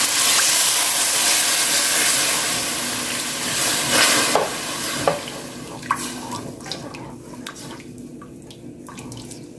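Oil and fried onion-spice masala sizzling in a hot pan with water just added. The sizzle dies down after about four seconds as the water cools the pan, while a spatula stirs and scrapes.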